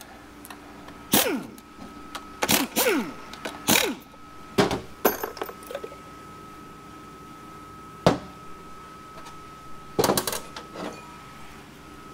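Metal transmission parts and hand tools knocking and clattering on a workbench during a valve body teardown: about eight separate sharp knocks, a couple of them with a short falling ring, and a longer pause between them midway. A steady high tone runs underneath.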